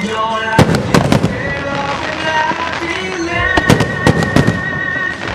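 Aerial fireworks bursting: a few sharp bangs about half a second to a second in, then another cluster of bangs midway through, over music playing a slow melody.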